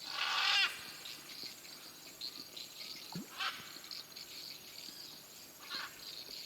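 Harsh squawking calls of parrots: a loud one at the start, then shorter ones about three and a half and six seconds in, over a steady pulsing drone of rainforest insects.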